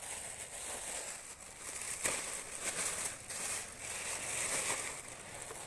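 Plastic bag rustling and crinkling as it is handled, with a few short sharp clicks.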